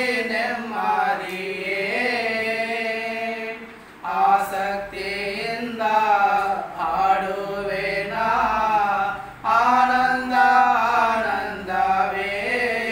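Two men singing a Kannada hymn a cappella, with long held notes, breaking briefly between phrases about four seconds in and again near ten seconds.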